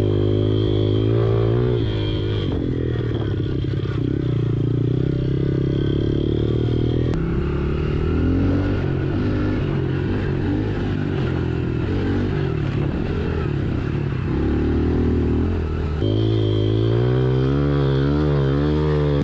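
Small single-cylinder 110cc four-stroke pit bike engines running under riding load, the revs rising and falling as the bikes are ridden over dirt trail. The sound changes abruptly twice, about a third and about five sixths of the way through.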